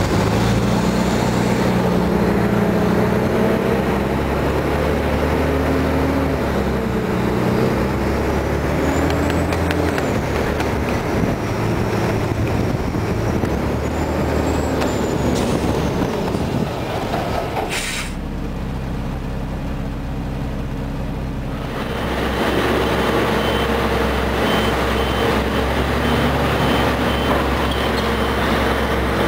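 Old Ford garbage truck with a Loadmaster rear-loader body, its engine running steadily as it drives and manoeuvres. In the last few seconds a backup alarm beeps regularly, about twice a second, over the engine.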